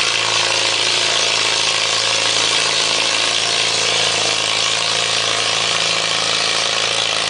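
Antique tractor engine running steadily under load as it pulls a weight-transfer sled.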